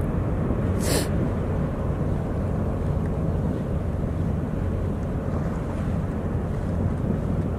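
Steady low rumble of a large car ferry's engines as it turns in harbour, heard with wind on the microphone, with a short burst of noise about a second in.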